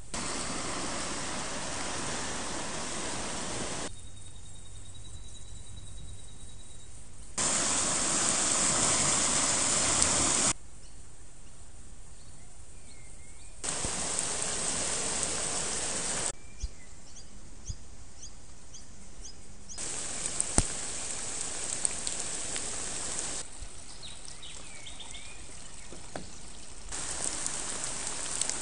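Rushing water of a creek in flood: a loud, steady rush in several few-second stretches, with raindrops tapping in the later ones. Between the stretches are much quieter spells in which birds call.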